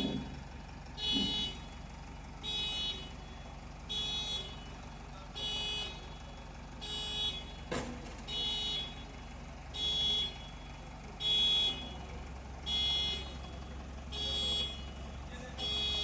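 A heavy machine's warning beeper sounding in regular beeps, about one every second and a half, over the steady low hum of its running engine. One sharp click comes about halfway through.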